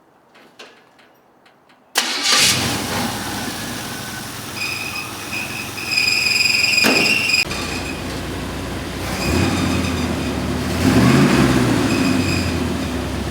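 Vintage GMC pickup's straight-six engine running, after a second or two of faint clicks. It comes in suddenly about two seconds in, with a high whine over the engine, and it is revved up and back down near the end.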